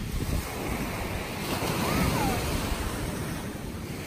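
Small waves breaking and washing up on a sandy shore, with wind buffeting the microphone. A faint short chirp rises and falls about two seconds in.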